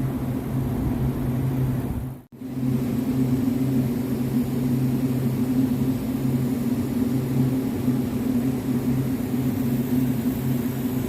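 A steady low mechanical hum with two even pitches, cutting out for an instant about two seconds in and then carrying on unchanged.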